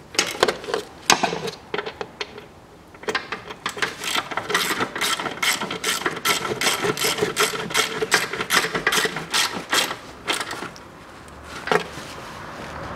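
Hand socket ratchet clicking in quick strokes as bolts of the plastic underbody splash shield are run in. The clicking pauses briefly about two seconds in, then goes on steadily until about ten and a half seconds.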